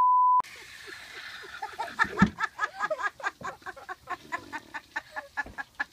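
A short steady bleep tone cuts off right at the start. After about a second and a half, a woman laughs hard in quick, high, repeated bursts, about five a second, which keep going.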